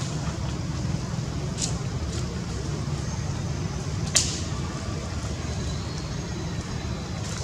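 Outdoor ambience: a steady low rumble of wind on the microphone with faint high chirps, two small clicks early on and one sharp, loud click a little after four seconds in.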